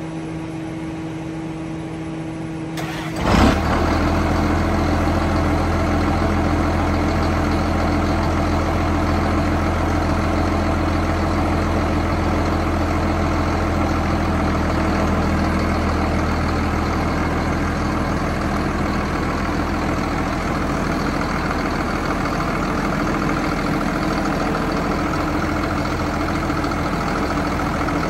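1998 John Deere 7810 tractor's 8.1-litre six-cylinder diesel starting with a short burst about three seconds in, then idling steadily. A fainter steady hum comes before the start.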